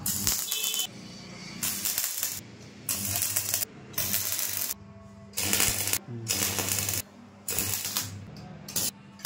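Stick (arc) welding on a steel window grill: the arc crackles and sizzles in about eight short spells of half a second to a second each, tack welds with breaks between them. A steady low hum runs underneath.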